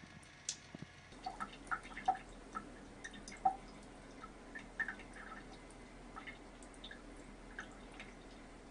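Thin stream of water from a bathroom faucet dripping and splashing into the sink basin: irregular small plinks, several a second, starting about a second in and thinning out after the first few seconds.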